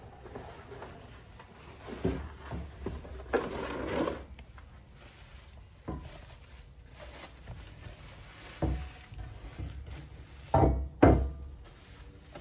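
Cardboard box and plastic wrapping handled as a new oil pan is unpacked on a wooden workbench: a rustle of plastic around three to four seconds in, scattered knocks, and two loud knocks close together about a second before the end.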